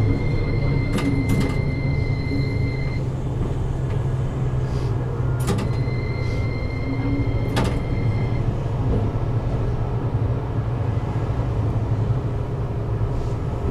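Toyohashi Railway T1000 'Hottram' low-floor tram running on street track, a steady low hum. A few sharp clicks and two spells of a thin high ringing tone sit over it, one in the first three seconds and one around the middle.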